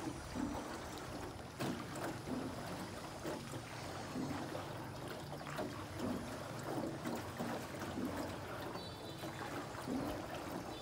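Water lapping and trickling around a small boat as it glides along a river, with a short knock from the boat about one and a half seconds in.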